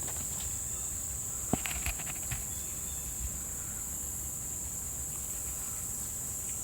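Steady high-pitched insect chorus outdoors, with a couple of light clicks or steps about a second and a half in.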